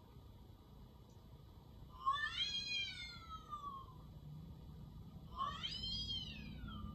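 A cat meows twice: two long, drawn-out meows that rise and then fall in pitch, the first about two seconds in and the second near the end.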